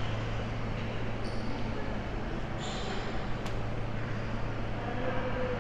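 Airport terminal ambience: a steady low hum over a wash of background noise, with a few short, high clinks.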